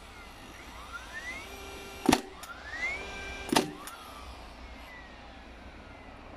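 DeWalt cordless flywheel framing nailer driving nails into timber: its motor whines up in pitch before each shot, and two nails are fired about a second and a half apart, each a sharp bang. The motor then winds down with a falling whine.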